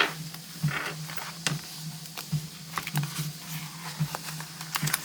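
Planners and a leather cover being handled: scattered small taps and clicks, with a short rustle about a second in, over a faint steady low hum.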